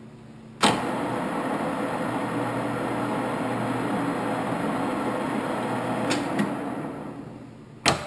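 Cincinnati Bickford Super Service geared-head drill press starting with a sudden clunk, its gear head and spindle running steadily for about six seconds. It then slows and fades, and a sharp clunk comes near the end.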